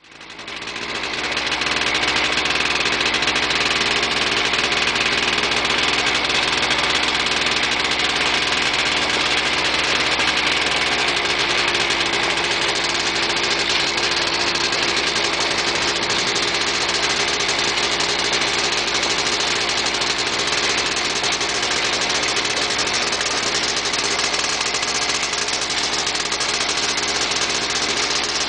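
ATV (quad bike) engine running steadily while riding along a gravel farm lane, fading in over the first couple of seconds.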